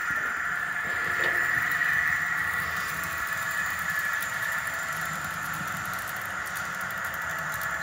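Model train running on a layout track: a steady high-pitched squeal over a low rumble.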